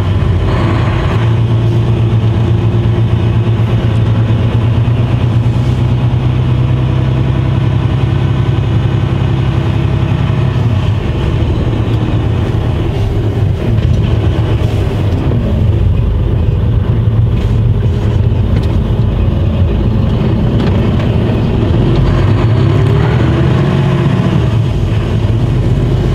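Diesel engine of a Mercedes-Benz Actros truck heard from inside the cab as the truck pulls away and drives on. It runs steadily, its note dipping and picking up again around the middle and near the end as it changes gear.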